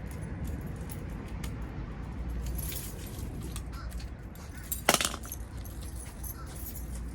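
A vehicle's engine running at low speed with a steady low rumble and light jingling rattles, as of keys, while the vehicle is moved up a short way. A single sharp clunk comes about five seconds in.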